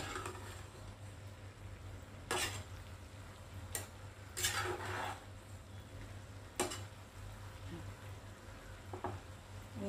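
A spatula stirring and turning chopped vegetables in a metal pot: a handful of separate scrapes and knocks, a second or two apart. The vegetables are half-cooked, cooking in a little water and coconut oil.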